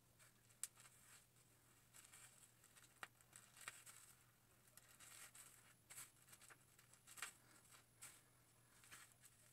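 Faint crinkling and rustling of a plastic highlighting cap and hair as strands are pulled out through its holes, in short scattered rustles and clicks.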